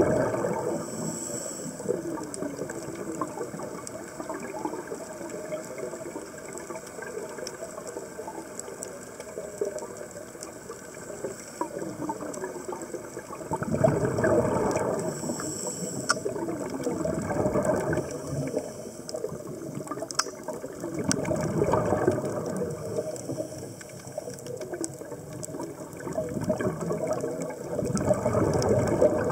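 Exhaled bubbles from a scuba diver's regulator gurgling underwater in swells every few seconds, with a short high hiss twice.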